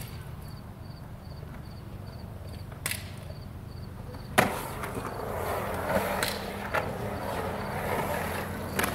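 Skateboard dropping into a concrete bowl: a sharp clack of the board hitting the transition about four seconds in, then the wheels rolling over the concrete with a growing rumble and a few smaller clicks.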